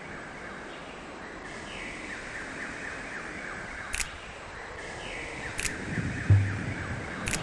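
Water rushing and lapping against a canoe hull as it moves along the river, with sharp knocks about every second and a half and a couple of low thumps near the end.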